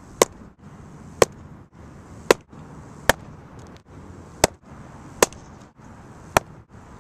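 Baseball popping into a leather catcher's mitt, a sharp crack about once a second, seven times in a row.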